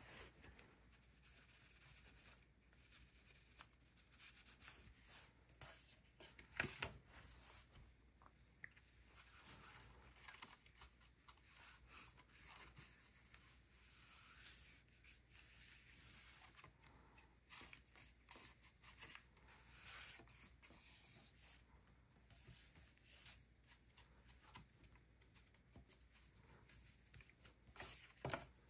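Faint, intermittent rustling and rubbing of paper being handled and pressed down as a glued paper panel is fixed in place, with a sharp tap about seven seconds in.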